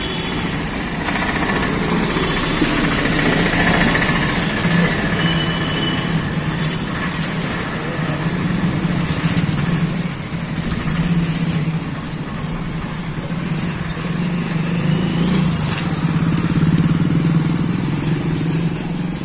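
Motorcycle engine running steadily at low riding speed, with a constant low hum, and street noise around it.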